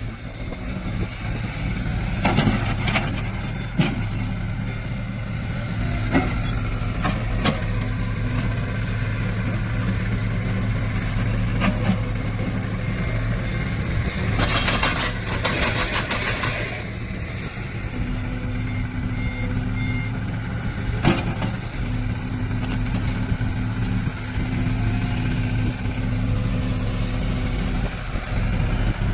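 Diesel engine of a Sany SY60C mini excavator running steadily. A few sharp metallic knocks are heard, and about halfway through comes a dense, noisy burst lasting about two seconds.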